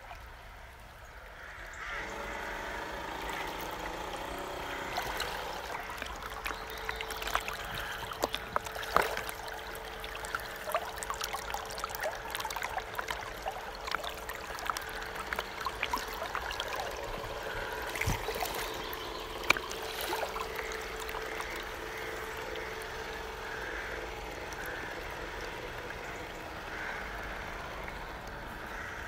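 Shallow river water rushing and splashing around a small remote-controlled boat, louder from about two seconds in, with the faint steady hum of the boat's motor underneath. A few sharp knocks stand out, the loudest about nine and nineteen seconds in.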